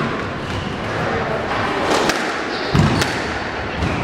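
Squash rally: a hard rubber ball struck by rackets and knocking off the court walls, three sharp knocks in the second half, the one just under three seconds in with a deep thud. Shoes squeak briefly on the wooden floor.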